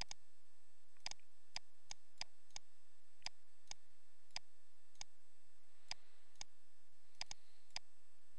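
Computer mouse clicking at an irregular pace, about fifteen sharp clicks, over a faint steady hiss.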